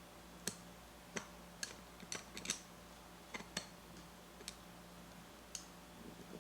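Scattered sharp light clicks, about ten, irregularly spaced, of a screwdriver and small metal parts as the burr screws of a Mazzer Mini coffee grinder are tightened by hand. A faint steady hum runs underneath.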